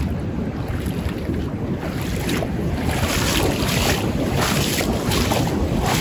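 Wind buffeting the microphone over the sound of waves on the shore. From about two seconds in, footsteps crunch on the beach at a walking pace, about two steps a second.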